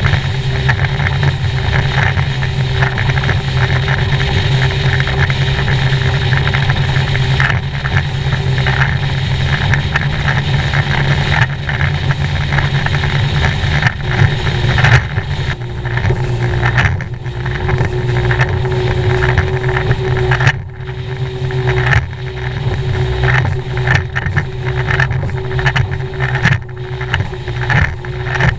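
Champion bass boat running at speed through choppy water: the outboard engine's steady drone under wind on the microphone and the hull slapping and spraying through the waves, with a few brief drops in level past the middle.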